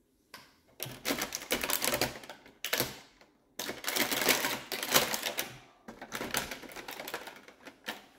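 Toy-car packaging being handled and opened: rapid crinkling and clicking of plastic and cardboard in several stretches, broken by short pauses.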